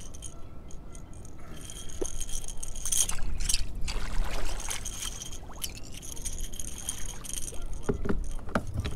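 Wind buffeting the microphone as a steady low rumble, with scattered light clicks and rattles of gear being handled in a kayak.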